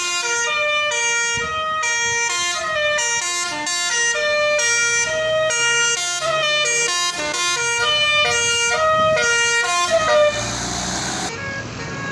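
Basuri multi-tone 'telolet' bus horn playing a quick tune of short notes stepping up and down. The tune stops about ten seconds in, followed by a hazy vehicle noise.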